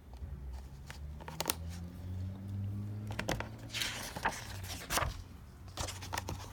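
Pages of a picture book being handled and turned: a few sharp paper clicks and a rustle about four seconds in, over a low hum.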